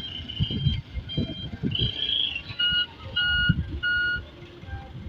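A dump truck's reversing alarm beeping, with three clear, evenly spaced beeps in the second half, over an irregular low rumble.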